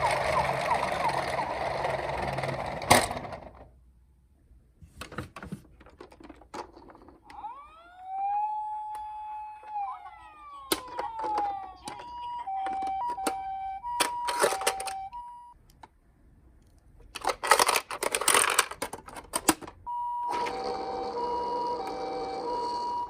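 Toy ambulance minicars sounding their electronic sirens one after another, with clicks and handling noises between them. One siren winds up in pitch, holds and slides back down. Later, a two-tone hi-lo ambulance siren alternates between two notes, about a second and a half into the second half and again near the end.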